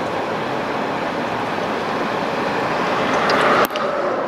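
Steady rushing road and wind noise of a car on the move, heard from inside with a window rolled down. It swells toward the end, then breaks off abruptly.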